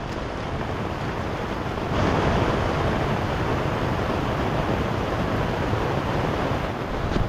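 A loud, steady rushing noise of wind or weather, growing louder about two seconds in, with one short sharp crack near the end.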